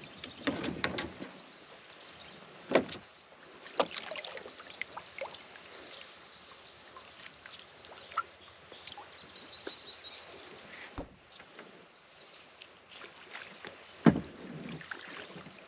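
Plastic kayaks being paddled and manoeuvred: the paddle dipping in the water and bumping the hulls, with scattered sharp knocks, the loudest near the end.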